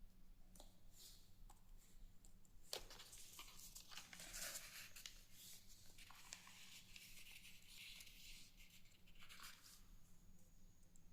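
A sheet of paper being folded and creased by hand: faint rustling and sliding, with a sharp crease snap about three seconds in.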